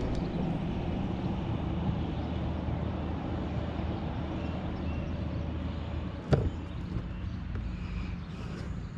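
Steady low hum of a motor running, with one sharp knock a little after six seconds in.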